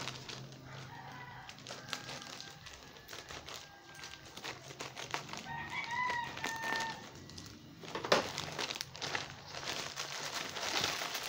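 Plastic courier pouch crinkling and rustling as it is handled and opened, with a sharp crackle about eight seconds in. A rooster crows in the background about six seconds in.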